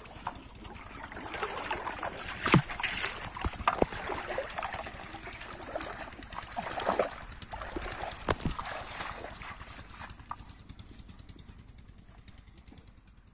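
Pond water splashing and sloshing as a man wades through it, with irregular knocks mixed in. The sounds fade away over the last few seconds.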